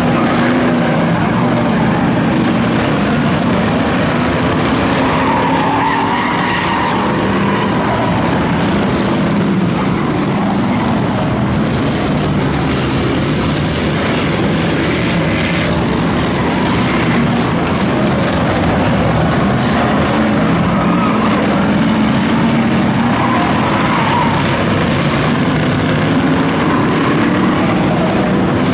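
A field of V8 enduro cars running laps together on a short oval track. Many engines blend into one continuous loud drone, and their notes rise and fall as cars go by.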